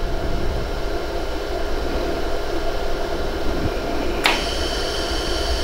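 Laser welding machine running with a steady fan hum and low rumble. About four seconds in, a steady hiss comes on abruptly.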